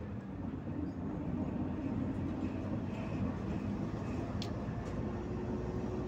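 Volgabus-5270.GH city bus heard from inside the cabin while driving: a steady engine and road rumble. A brief click comes about four and a half seconds in.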